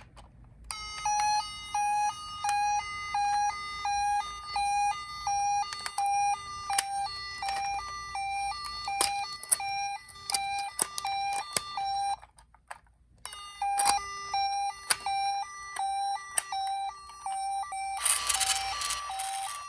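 Toy ambulance minicar's tinny electronic two-tone siren, a Japanese-style 'pii-poo' that switches quickly back and forth between a lower and a higher note, with scattered sharp plastic clicks. It breaks off for about a second some twelve seconds in, then starts again, and a burst of rustling noise joins it near the end.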